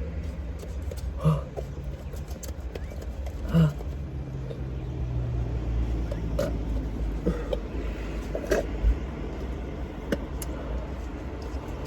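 Low steady rumble inside a car's cabin, with scattered small clicks and knocks from handling cups and packaging, and a couple of brief louder sounds about one and three and a half seconds in.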